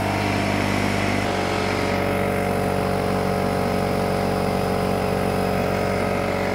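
Porter-Cable pancake air compressor's oil-free pump running steadily under load, drawing about 930 watts from a battery power station; its tone shifts slightly about a second in.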